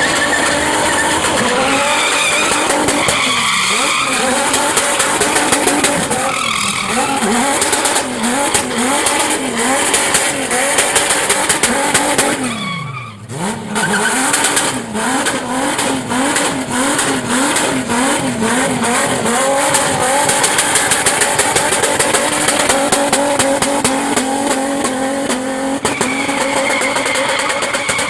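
Car drifting: the engine is held at high revs that bounce up and down rapidly while the tires skid and screech. About halfway through, the revs drop sharply and the sound dips briefly, then builds again.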